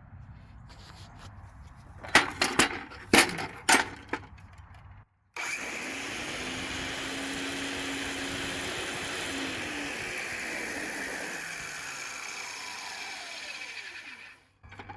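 A few sharp clunks from the Black & Decker heavy-duty miter saw being handled, then its electric motor starts suddenly and runs steadily for about nine seconds. Near the end it winds down, its pitch falling.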